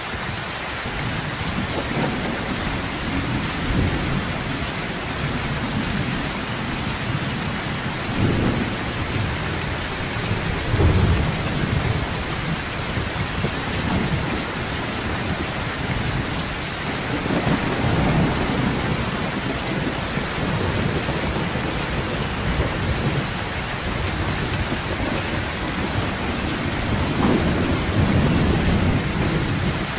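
Heavy rain falling steadily, with several low rolls of thunder swelling up through it, the strongest about a third of the way in.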